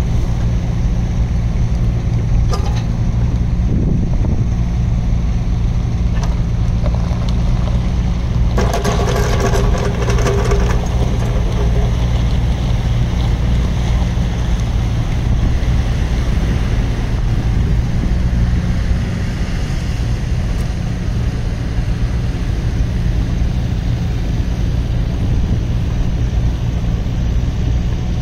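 Doosan DX27Z mini excavator's diesel engine running steadily under hydraulic work as the arm moves and the upper structure slews round, with a brief higher whine about nine seconds in.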